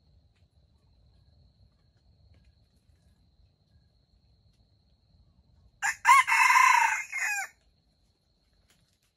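Red junglefowl rooster crowing once, a loud, short crow of about a second and a half: a brief first note, a long held note and a clipped tail.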